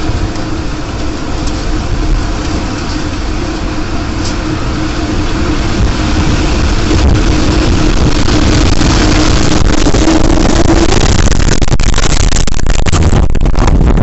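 Tornado roar: a loud, even rush of wind noise that swells over the first half and then holds steady, with a faint steady hum under it until a few seconds before the end.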